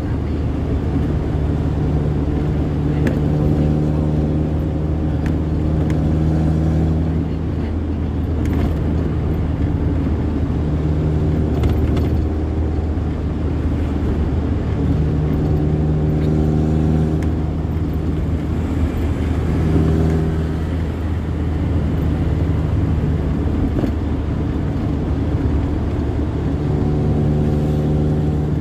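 A vehicle engine running at a steady speed over a constant low rumble of travel. Its pitched engine tone holds level for a few seconds at a time, fading out and returning several times.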